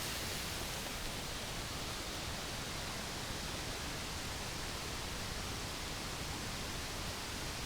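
Steady, even rush of falling water from a waterfall, a continuous hiss with no breaks.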